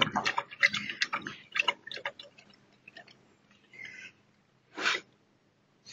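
Tibetan mastiff lapping water from a watering can: quick wet lapping clicks, several a second, that thin out after about two seconds. A few short, louder noisy bursts follow, the loudest about five seconds in.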